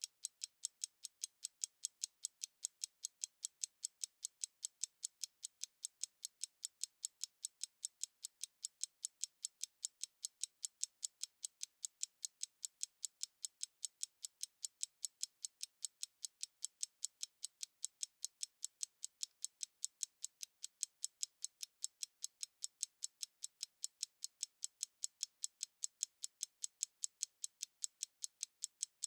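Analog stopwatch ticking steadily, about five crisp, high ticks a second.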